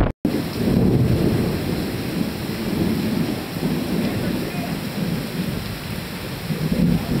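Heavy rain falling steadily, with louder low swells about a second in and near the end. The sound drops out for an instant right at the start.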